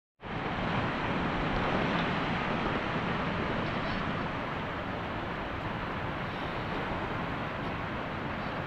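Steady rushing of running water from a mountain stream, an even unbroken noise that starts abruptly just after the beginning.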